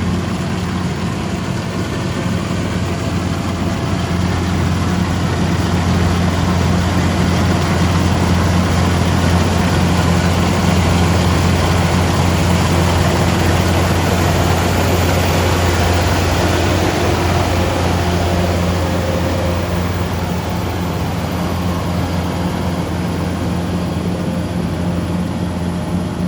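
Kubota DC-105X rice combine harvester running steadily: a low diesel drone under a broad rushing machine noise, growing a little louder in the middle and easing off again.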